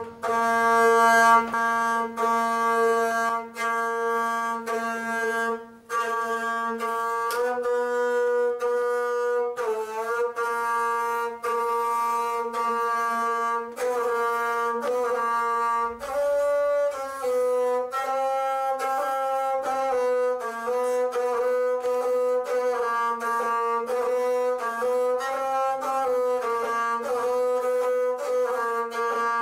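Gusle, the single-string bowed Balkan folk fiddle with a skin soundboard, being played with its curved bow. It plays a melody in short, repeated bow strokes with the pitch stepping up and down, starting right at the beginning.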